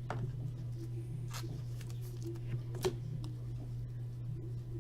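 Trading cards being handled and flipped through, with a few soft clicks as cards are moved, the sharpest about three seconds in, over a steady low hum.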